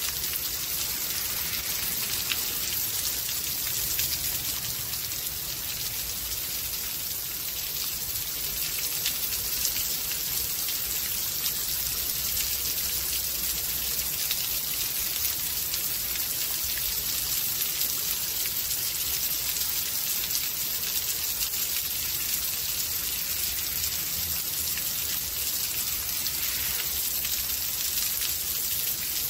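Steady rainstorm: rain falling with a constant high hiss, dotted throughout with many fine ticks of individual drops.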